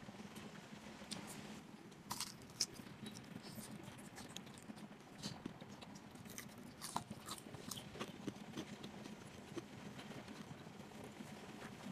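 Eating sounds: chewing and biting into batter-fried chicken feet, with scattered crisp crunches and small clicks.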